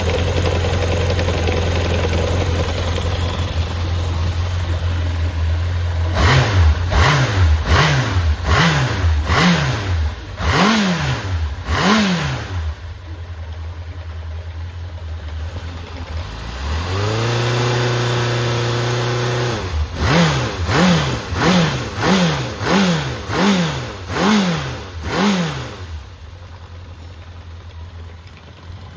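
Honda CB750F (RC04) air-cooled inline-four engine idling, then blipped on the throttle again and again, each rev rising and dropping back quickly. Near the middle it is held for a few seconds at a higher steady speed, then blipped again and left at a quieter idle. It runs cleanly with no abnormal noise, as the seller describes it.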